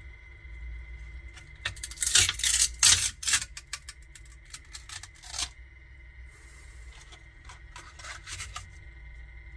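Clicking and rattling of small hard parts being handled, in bursts: the loudest about two to three and a half seconds in, shorter ones around five and eight seconds. A faint steady high whine and low hum run underneath.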